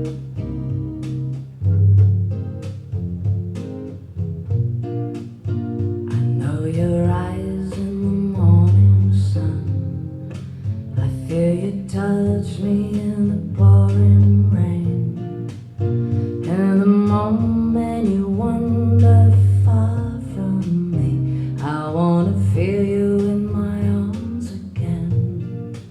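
Recorded music: a slow acoustic guitar and double bass accompaniment, with a singing voice coming in about six seconds in.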